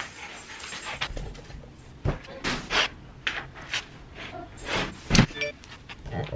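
Small dog panting and moving about while a sliding glass patio door is unlatched and pulled open, giving a run of short knocks and scrapes; the loudest knock comes about five seconds in.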